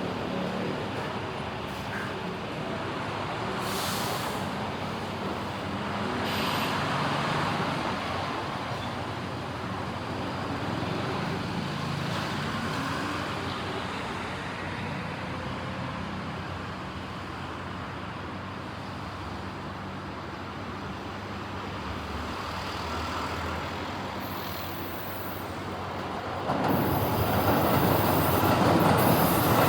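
Steady road traffic with vehicles passing, the hum swelling and fading. About 26 seconds in a train arrives and its noise on the track suddenly becomes much louder.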